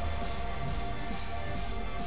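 Background music: an electronic track with a steady beat and a sustained low bass.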